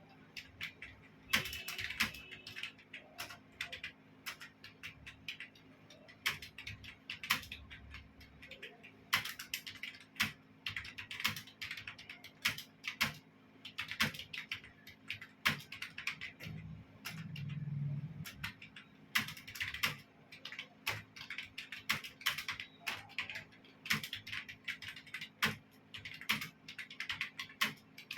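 Computer keyboard being typed on quickly during a timed typing test: a dense, irregular patter of keystrokes with short pauses between runs.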